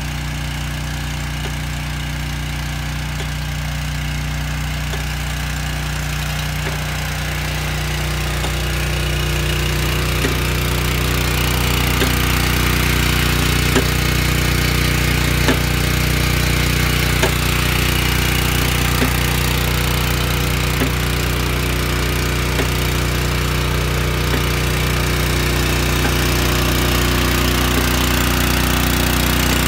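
Small petrol engine on a booster pump cart running steadily at working speed, driving the pump that feeds a hose-reel irrigator. It grows louder over the first third, and from then on a sharp tick comes about every 1.7 seconds.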